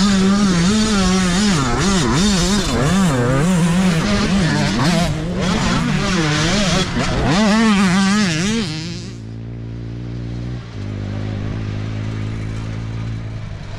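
Youth dirt bike engine revving hard through a muddy water crossing, its pitch rising and falling rapidly as the throttle is worked, with mud and water spraying from the rear wheel. About nine seconds in it drops away to a quieter, lower, steady engine note of a dirt bike at low revs.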